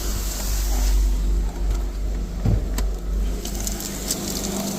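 A car engine running steadily, with a few light clicks about halfway through.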